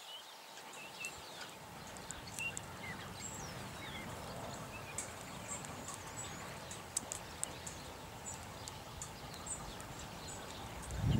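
Small birds chirping, with many short gliding calls, over a faint steady background hiss.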